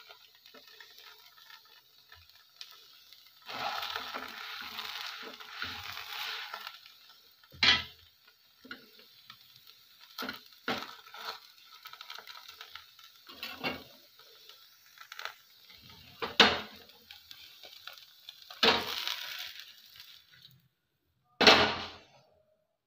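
Kitchen work at a non-stick pan on a gas stove: a scattering of sharp knocks and clatters of the pan and utensils, with a few seconds of hissing a few seconds in, as thin spring roll wrappers are cooked.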